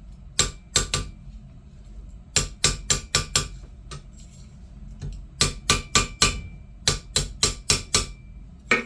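Hammer striking 18-gauge copper wire against a metal makeshift anvil, crimping the crossings of a wire heart flat so they can't move. The blows come in runs of several quick sharp taps a second, with short pauses between the runs, and each tap leaves a brief metallic ring.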